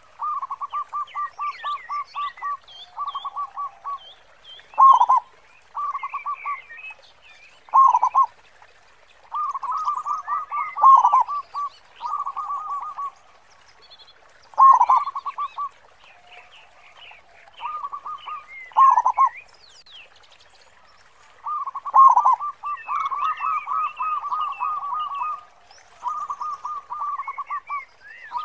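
Zebra dove (perkutut) singing its cooing song over and over: runs of quick staccato coos, with one louder, fuller note in each phrase every three or four seconds.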